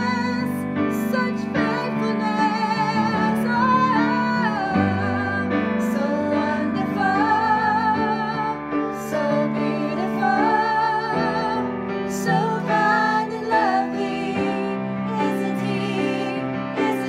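Slow worship song: a singer with vibrato over piano accompaniment.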